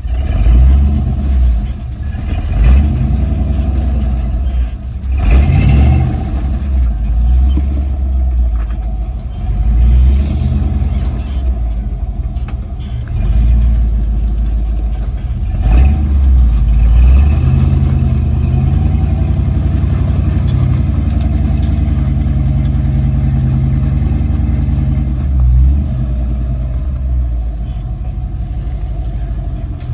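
An off-road truck's engine running at low speed on a rocky trail, its revs rising and falling as it crawls, with a couple of sharp knocks from the rig bumping over rock.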